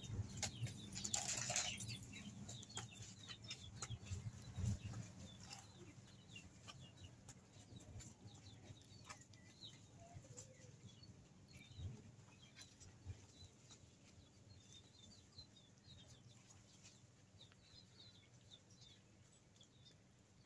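Faint chirping of birds and clucking of fowl in the background, scattered short calls throughout and fading toward the end, with a brief rustle about a second in.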